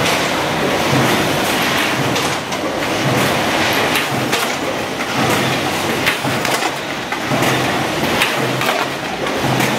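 Factory can-making machinery running on an 18-litre square can body line: sheet-metal feeding and forming mechanisms clattering and clanking over a steady mechanical din. A low hum comes and goes about once a second with the machine cycle.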